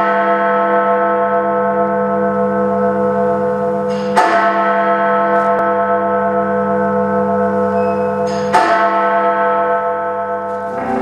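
A large bell tolling slowly: struck twice, about four seconds apart, with each stroke ringing on until the next.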